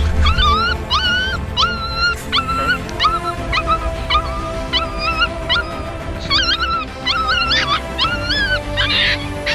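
A puppy whimpering and yelping in a steady run of short, high-pitched cries, about two a second, over background music.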